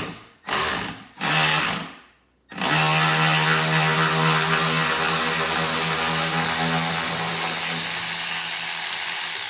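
Milwaukee M12 cordless 3/8-inch ratchet running in three short bursts, then a steady motor whine for about seven seconds as it backs out a bolt holding a TV wall mount.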